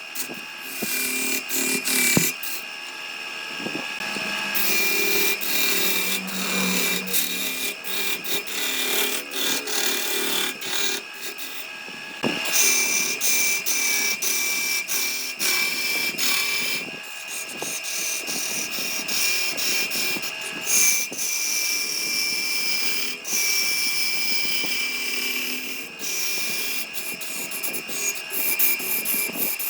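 A power tool's motor running with a steady whine while it works wood, with many short clicks and scraping sounds from the cutting. A few falling high tones come in the second half.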